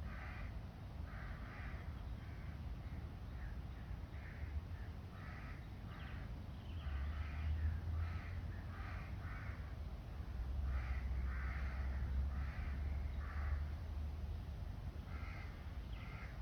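Birds calling: a long, irregular series of short, harsh, crow-like calls, several a second at times, over a steady low rumble that swells twice.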